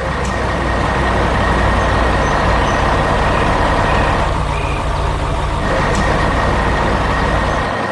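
Heavy construction vehicle engine running steadily with a deep low rumble. The rumble drops out near the end.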